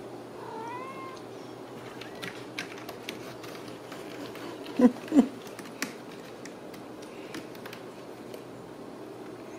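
Ragdoll kittens meowing: a short mew about half a second in, then two loud, short, low cries in quick succession around the middle, over scattered light clicks.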